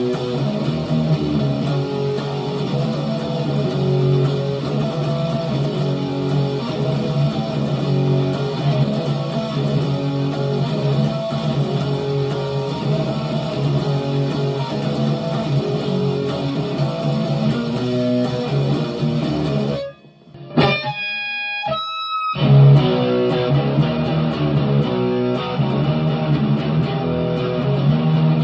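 Electric guitar playing a distorted, repeating grunge riff through a tube amp, first with a Boss DS-1 distortion pedal. About twenty seconds in the playing breaks off for a couple of seconds with a few ringing notes, then the riff starts again with a Joyo American Sound overdrive pedal, sounding less bright.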